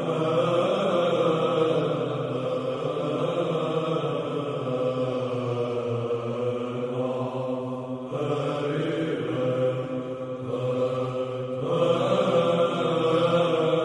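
Greek Orthodox (Byzantine) church chant: slow, long-held sung notes over a steady low drone, with the melody changing pitch about eight and twelve seconds in.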